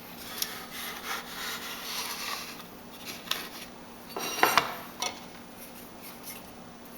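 Knife scraping and cutting through dragon fruit, with a few sharp knocks of the blade. The loudest knock comes about four and a half seconds in.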